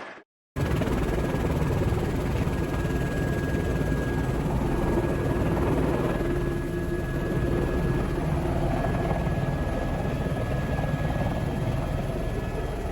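Helicopter in flight, heard from on board: steady rotor and engine noise with a fast low beat and a thin steady whine. It cuts in after a brief silence at the very start.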